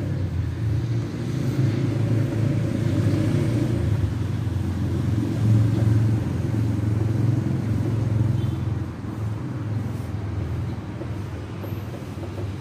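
Steady low engine-like rumble with a hum, easing slightly about nine seconds in.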